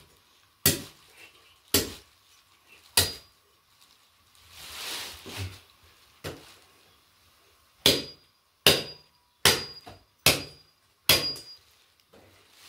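Long butcher's knife chopping through the ribs of a slaughtered carcass: about nine sharp chops, a few spaced strokes at first, then a steady run of five near the end, several with a brief metallic ring from the blade.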